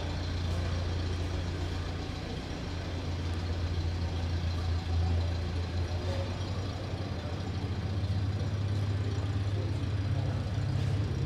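A steady low engine drone with no breaks, getting a little louder in the last few seconds.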